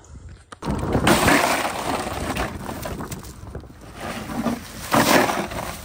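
Crushed ice being poured into a plastic cooler over butchered hog meat, a dense rattling clatter that starts suddenly about half a second in and surges twice.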